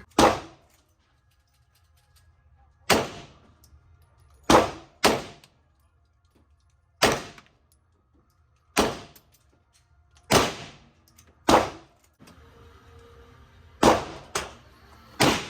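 Gunshots fired one at a time in slow succession during target practice, eleven shots spaced about one to two seconds apart, each with a brief ringing tail.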